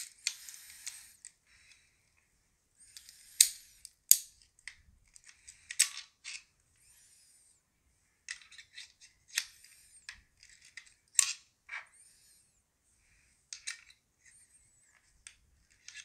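Needle-nose pliers turning a thin metal shim wedged against the shackle of a Master Lock No. 5 laminated steel padlock. Irregular sharp metallic clicks and short scrapes come with pauses between them; the loudest clicks fall about three and four seconds in and again near the middle.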